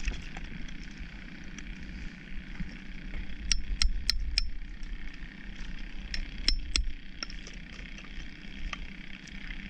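Sharp, ringing clinks of a hammer knocking at oyster shells: four quick strikes about a third of the way in, then three more about two seconds later. A steady low rumble runs underneath.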